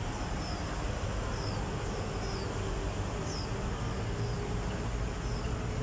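Steady outdoor background rumble with faint, short high chirps recurring about once or twice a second.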